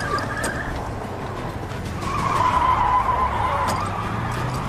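Car tyres squealing as the car skids, over the low rumble of its engine. The squeal comes briefly at the start and again, louder and longer, from about two seconds in until nearly four.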